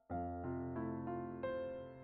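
Background music: a gentle piano melody over held chords, with a new note struck about every third of a second.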